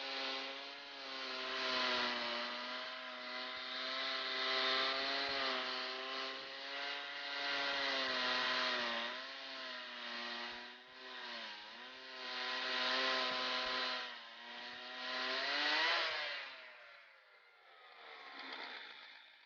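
Two-stroke chainsaw power head (Stihl 088) driving a swing blade sawmill, running at high revs with its pitch dipping several times as it bogs under load. Near the end it winds down in pitch and fades out.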